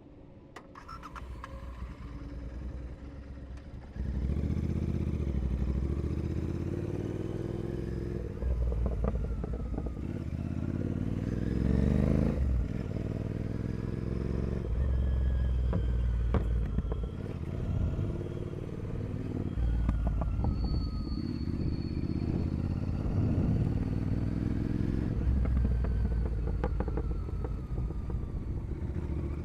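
Royal Enfield Continental GT 650's parallel-twin engine running through a full 2-into-1 carbon racing exhaust. It gets louder in the first few seconds, then revs rise and fall repeatedly as it is ridden, with the sharpest climb about twelve seconds in.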